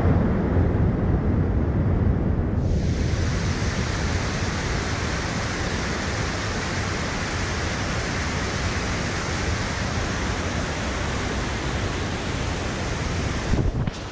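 Steady rush of a mountain waterfall, white water cascading down over boulders.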